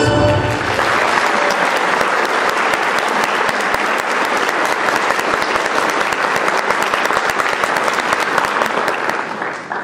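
The music ends on a final chord and an audience breaks into applause: dense, steady clapping that dies away near the end.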